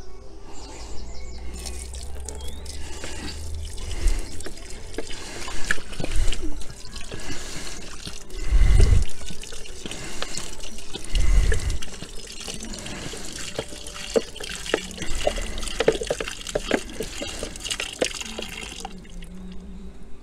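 Water poured steadily from a large plastic bottle into a plastic tub, splashing onto a dry coco coir block to rehydrate it. A couple of short low bumps come midway.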